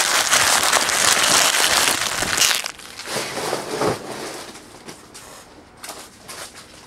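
Empty foil trading-card pack wrappers being crumpled and gathered by hand: a loud crinkling for about two and a half seconds, then softer scattered crackles that die away.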